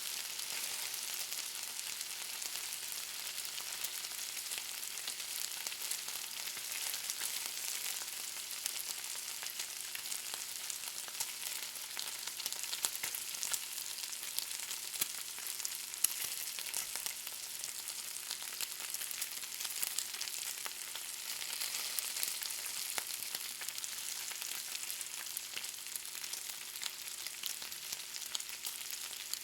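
Bacon frying: a steady sizzle with many small crackles and pops.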